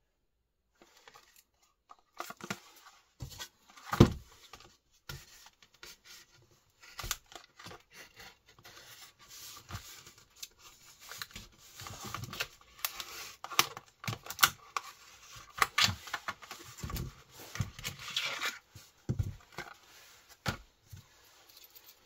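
Tearing and crinkling of wrapping, with scattered clicks and knocks; the loudest knock comes about four seconds in.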